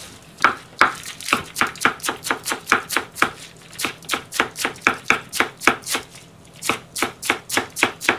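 Kitchen knife shredding lettuce on a wooden cutting board: a steady run of crisp chops, about three to four a second, with two brief pauses.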